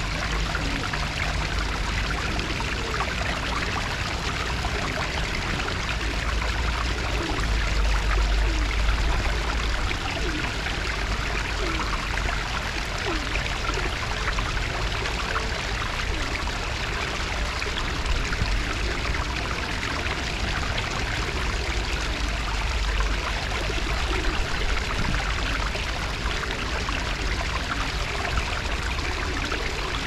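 Running water, splashing steadily and evenly, with a low rumble underneath.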